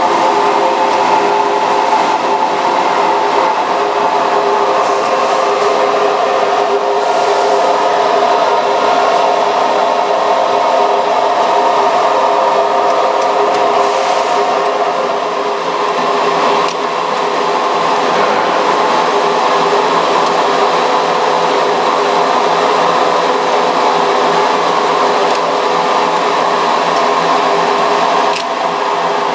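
Blown plastic film extrusion line running: a loud, steady mechanical whir with several steady tones in it.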